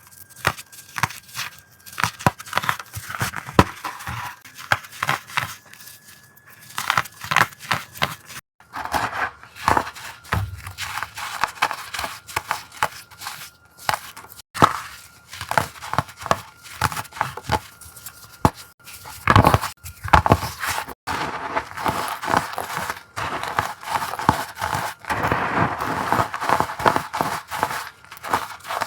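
Crunchy, crackly crushing of pressed powder blocks: a rapid run of sharp crackles and snaps, thickening into denser crumbling crunches a few times.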